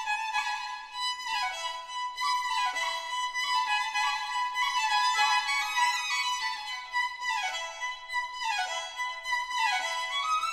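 Background music: a high violin melody playing phrases that step downward, one after another.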